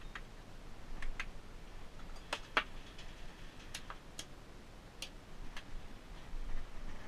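About ten light, sharp clicks and taps at uneven intervals, the kind made by things being handled and set down.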